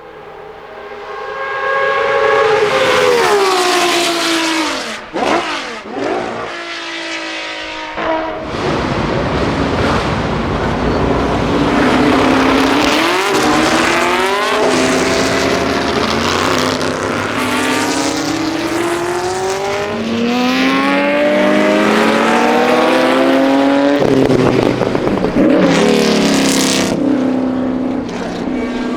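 Historic racing cars' engines at full throttle, several cars passing in turn. The pitch climbs and drops back again and again as they shift up through the gears, and it falls sharply as one car goes by a few seconds in.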